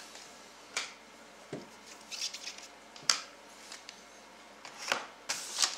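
Trading cards and foil card packets being handled: scattered light taps, clicks and short rustles.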